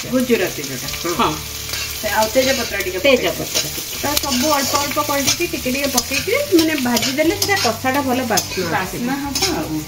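Onions and whole spices frying in oil in an iron kadai, sizzling while a metal spatula stirs and scrapes them around the pan again and again.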